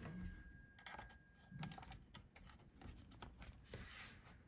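Faint, scattered light clicks and scratches of small laptop parts being handled, as the cooling fan's cable connector is worked loose from the motherboard.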